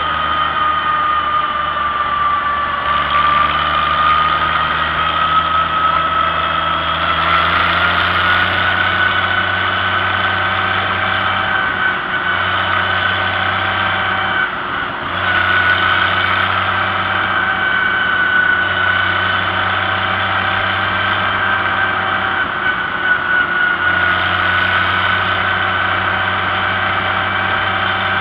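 Vintage John Deere tractor engine running steadily at road speed, with a steady whine whose pitch drifts up and down slightly; the sound dips briefly about halfway through.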